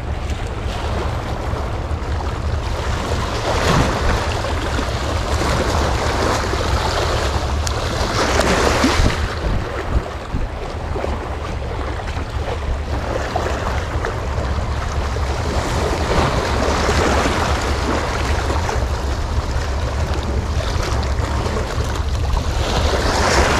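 Wind buffeting the microphone over the wash of sea waves: a steady low rumble with louder swells every few seconds.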